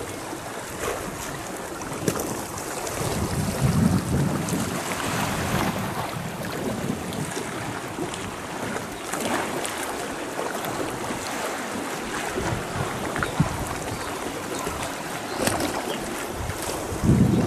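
Small waves lapping against a rocky shore, with wind buffeting the microphone in gusts, heavier a few seconds in and again near the end.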